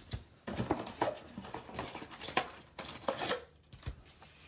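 Trading card packs in crinkly wrappers being pulled out of an opened cardboard box and stacked on a table: an irregular run of rustles, crinkles and light taps.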